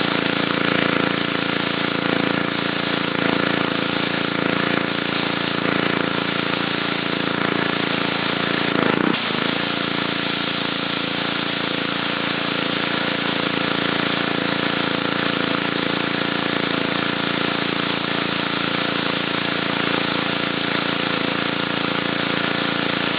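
Gas pressure washer with a Honda 5 hp engine running steadily, its water jet hissing on concrete, with a brief change in the sound about nine seconds in.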